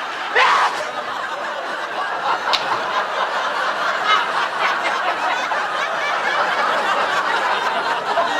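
Studio audience laughing together in a long, sustained wave of laughter, with a brief vocal outburst just after it begins.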